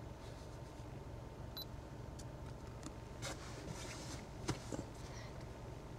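Camera handling noise: a brief electronic beep about a second and a half in, then a few sharp clicks and knocks, the loudest about four and a half seconds in, over a low steady hum.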